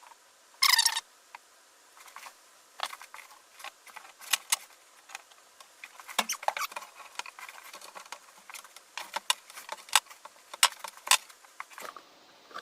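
Clamps being set and tightened on a wood glue-up: a short squeak about a second in, then a scattered run of light clicks, taps and knocks of metal and wood.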